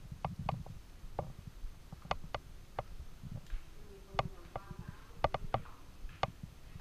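Sharp clicks and taps at irregular intervals, about ten in all, over a low rumble of wind and handling on the microphone.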